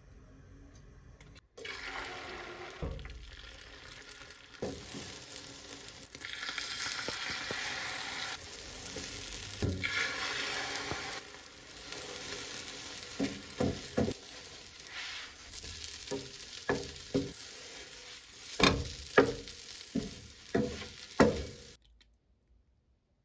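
Egg omelette sizzling in a Tefal nonstick frying pan, with a spatula scraping against the pan as it is rolled. In the second half, a run of sharp knocks comes, the loudest in the last few seconds, before the sound stops.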